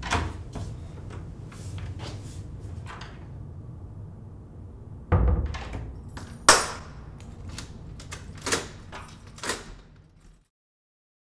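Wooden interior door being shut, with a heavy thump about five seconds in, followed by several sharp knocks and clicks, the loudest about a second after the thump, over a low room hum. The sound cuts off to silence near the end.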